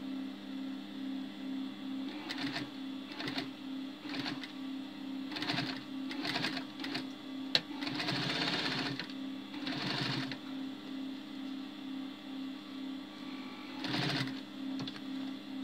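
Electric sewing machine stitching a zip into a hoodie in a string of short runs, the longest lasting about a second around eight seconds in, with a sharp click just before it. A steady low hum with a regular pulse about twice a second runs underneath.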